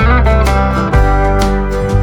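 Background instrumental music led by guitar, with sliding notes.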